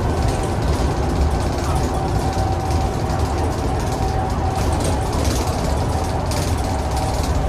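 Cummins ISBe185-30 diesel engine of a single-decker bus running steadily, heard from inside the bus as a continuous low rumble with a faint steady whine above it.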